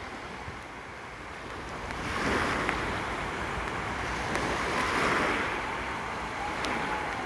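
Sea waves washing onto a beach, the surf swelling about two seconds in and again around five seconds.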